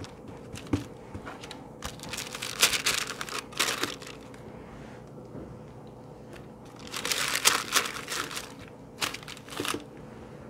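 A sheet of baking paper crinkling under the hands as biscuit dough scraps are folded and patted out on it, in two spells of rustling, with a few light knocks between them.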